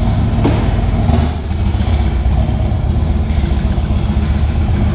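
2008 Harley-Davidson Dyna Super Glide's Twin Cam 96 V-twin running at low revs as the bike rolls slowly, with a short dip in level about a second and a half in.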